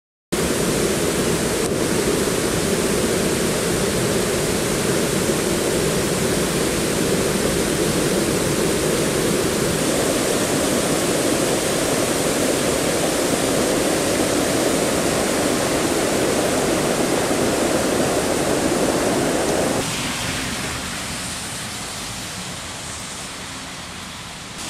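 Swollen water pouring over a low concrete dam spillway, a loud, steady rush of churning white water. About twenty seconds in it cuts off abruptly to a much quieter, fading hiss.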